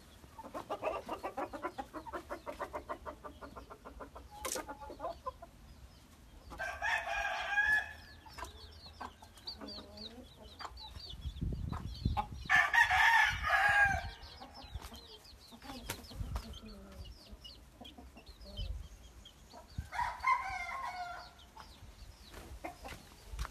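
Roosters crowing three times, each crow about a second and a half long, the second the loudest. Before the first crow, chickens cluck in a fast run.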